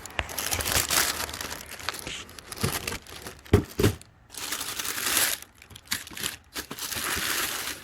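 Packaging crinkling and rustling as it is handled, with a couple of short knocks about three and a half seconds in.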